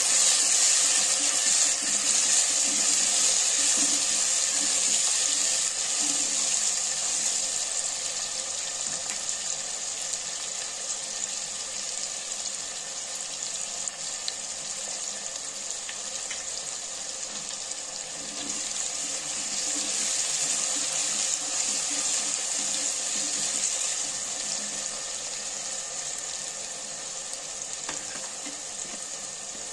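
Sliced onions and whole spices frying in hot oil, a steady sizzling hiss that eases off in the middle and swells again about two-thirds through.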